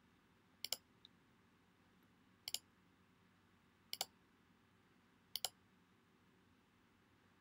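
A computer mouse clicked four times, about a second and a half apart. Each click is a quick pair of snaps as the button is pressed and released.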